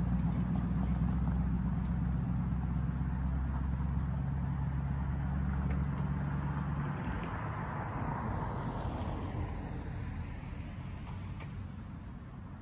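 Road vehicles driving over a railroad crossing: a low steady engine drone that cuts out about six to seven seconds in, then the tyre noise of a passing car swelling and fading.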